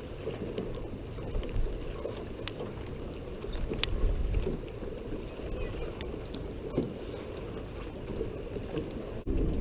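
Wind buffeting the microphone over choppy lake water lapping at a dock, a steady low rumble with scattered light clicks and splashes.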